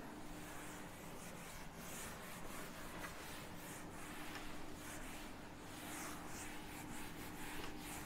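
A whiteboard eraser being wiped across a whiteboard in repeated soft, hissing strokes, about two a second.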